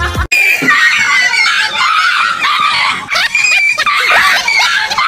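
High-pitched screaming and squealing, several cries overlapping and wavering in pitch, starting abruptly about a third of a second in.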